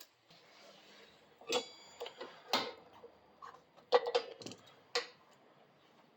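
Irregular sharp clicks and light metallic clinks from hand tools and brake parts being handled on a workbench, about seven in all, bunched in two groups with a short ring after one of them.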